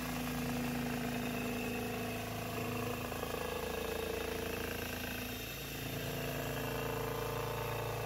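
Homemade telescope-mirror grinding machine running: its motor and a 240-grit cup grinding wheel fine-grinding a glass mirror blank on the turning table, with coolant water fed onto the glass. A steady mechanical hum with a few held tones whose pitch shifts a little about five seconds in.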